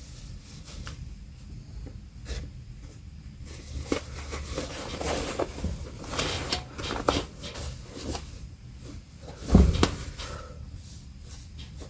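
Handling noises on a work surface: scattered light clicks and rustles, with a louder knock about ten seconds in.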